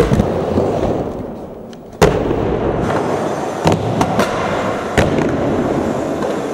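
Skateboard wheels rolling on concrete and ramp surfaces, broken by sharp clacks of the board hitting and landing: the loudest about two seconds in, then more near four and five seconds.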